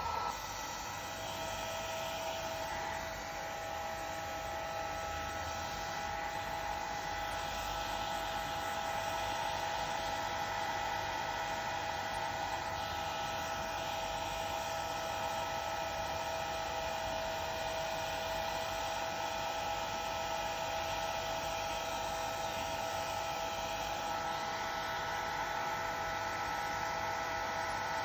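Hair dryer running steadily, a constant hum with a few fixed tones over the rush of air.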